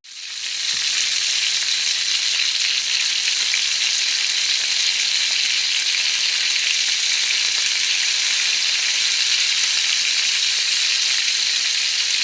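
Minced-chicken kababs sizzling as they shallow-fry in a little oil in a grill pan: a steady, even hiss that comes up within the first second.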